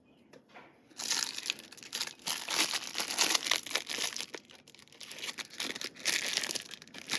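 Packaging crinkling as it is handled, starting about a second in and going on as a dense run of small crackles.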